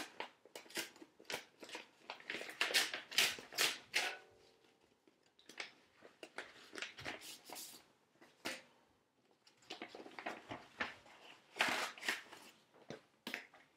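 Paper envelope being torn open and its contents pulled out: repeated bursts of tearing and rustling paper, in three clusters with short pauses between.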